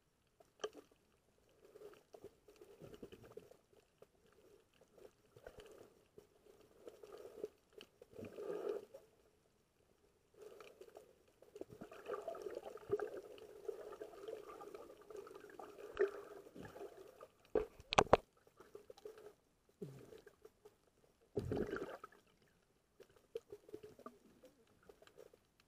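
Muffled underwater sound heard through a submerged camera: irregular swishing and crackling water noise that comes and goes, with a sharp knock about two-thirds of the way through and a dull thump a few seconds later.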